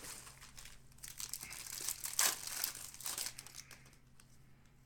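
Trading-card pack wrapper crinkling and tearing open: irregular crackling from about a second in, loudest near the middle, dying away near the end.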